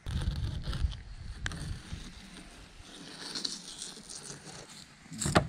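Filleting knife cutting along the side of a Spanish mackerel: faint slicing and scraping of the blade through the flesh, over a low rumble in the first couple of seconds, with a single click about a second and a half in. Quick sharp knife strokes begin just at the end.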